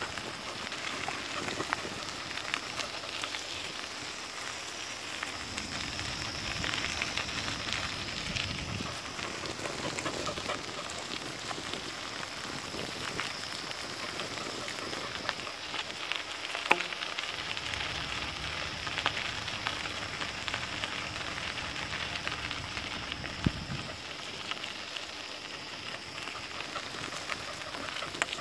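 Bicycle tyres rolling over a gritty dirt path: a steady crackling crunch full of small clicks, with a few louder knocks, one a little past the middle and one near the end.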